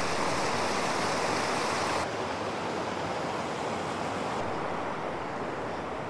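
Steady rushing of a mountain stream tumbling over rocks, a little quieter from about two seconds in.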